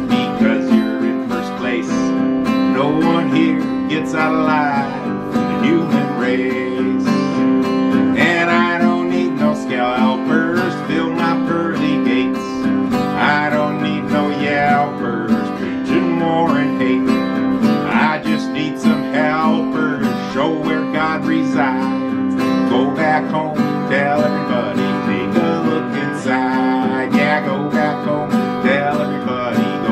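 Acoustic guitar playing an instrumental passage of strummed chords mixed with picked notes, without singing.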